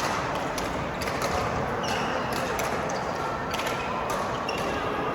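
Badminton play: repeated sharp racket-on-shuttlecock hits and brief squeaks of court shoes on the floor, over a steady background of hall noise.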